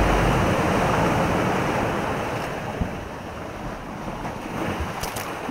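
Ocean surf ambience, a steady wash of noise that gradually fades out.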